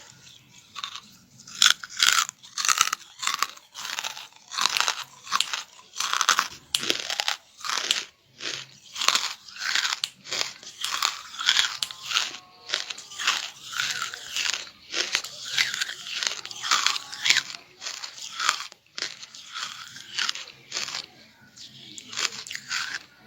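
A person biting and chewing hard charcoal close to the microphone: a rapid run of dry, sharp crunches, two or three a second, with short pauses between mouthfuls.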